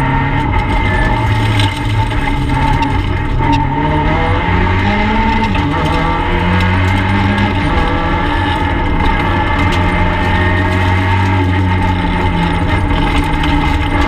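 Peugeot 208 R2B rally car's 1.6-litre four-cylinder engine heard from inside the cabin while driven along a stage. The engine pitch rises and drops about five seconds in, then holds steady.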